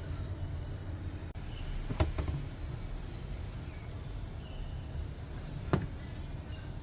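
A steady low rumble with two sharp knocks, about four seconds apart.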